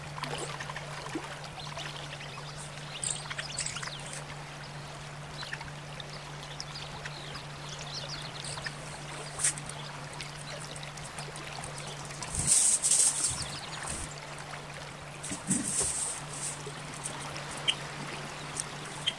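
Steady low hum with scattered soft taps and short scratchy rustles, the loudest a cluster about two thirds of the way through.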